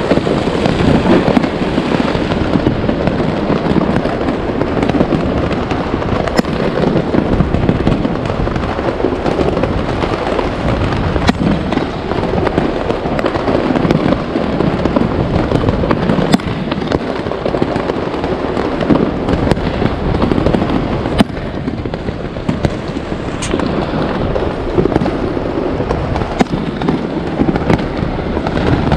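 Many fireworks going off at once: a loud, dense, unbroken crackle and rumble of overlapping bursts, with a few sharper single cracks standing out above it.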